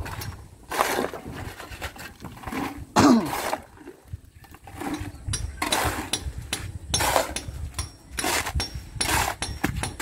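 Construction work at wooden concrete-column formwork: irregular knocks and clatters as buckets of concrete are handled and poured, with a few brief vocal sounds and a low steady rumble underneath from about halfway.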